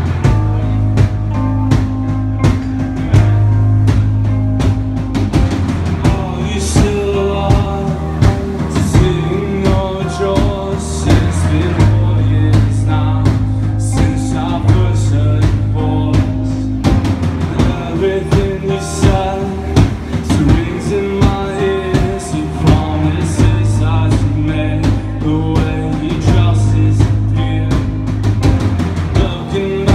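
A live band playing: electric guitars over a drum kit keeping a steady beat, with sustained bass notes underneath.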